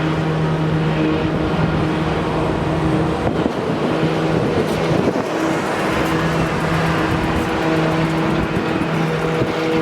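An engine running steadily: a low, even hum with overtones over a constant noisy wash, the hum dropping out briefly a few times.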